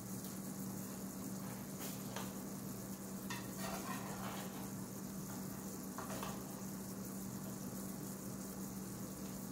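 Knife scraping and tapping against a metal baking pan while cutting a soft, warm cake, a few short scrapes about two, four and six seconds in, over a steady hiss and low hum.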